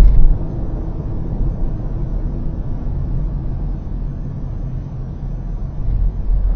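Car driving at expressway speed, heard from inside the cabin: a steady low rumble of tyres and engine, with a brief loud thump right at the start and a swell in the rumble near the end.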